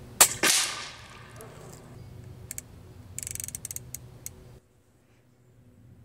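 Steyr LG110 PCP air rifle firing one shot: a sharp crack followed at once by a louder report that fades over about half a second. A few seconds later comes a quick run of small clicks as the scope turret is adjusted, then the sound cuts out.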